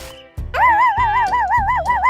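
Cartoon sound effects over background music: a sharp swish or hit at the start, then a wavering, warbling tone that wobbles about five times a second for about a second and a half.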